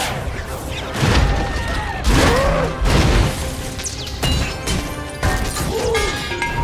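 Action film soundtrack: orchestral score under a series of heavy crashes and clanks from a giant armoured robot suit, with loud hits about one, two, three and five seconds in.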